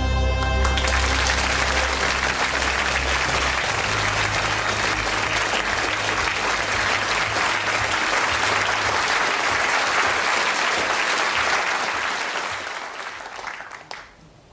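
Audience applauding steadily, fading away near the end. The last of the theme music cuts off about a second in.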